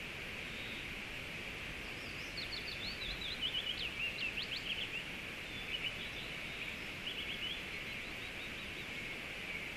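Songbird singing a quick run of rapid sweeping chirps a couple of seconds in, with a shorter phrase a few seconds later, over a steady rushing river.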